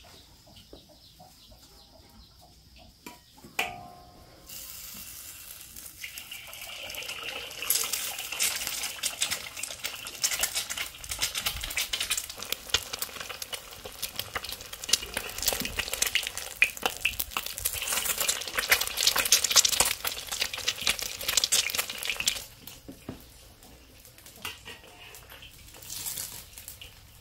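Egg frying in hot oil in a wok, sizzling and crackling. It builds from about five seconds in, stays loud, and stops suddenly a few seconds before the end. Earlier there is a single clink.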